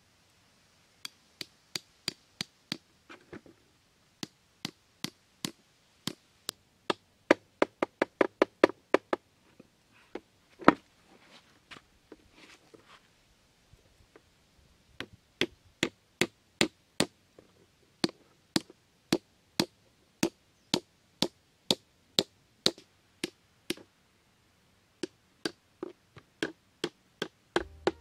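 A small hatchet knocking a thin wooden stake into packed dirt in a long run of sharp, separate blows. They come about one or two a second, with a quicker flurry in the middle and a short pause before the blows resume.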